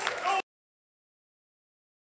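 A congregation applauding with a voice over it, cut off abruptly about half a second in, then dead silence.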